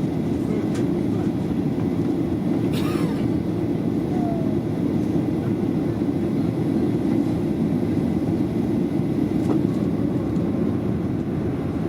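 Steady cabin noise inside a Boeing 737-700 in flight, the engines and airflow heard from a passenger seat as a low, even rumble. A brief rustle or click sounds about three seconds in.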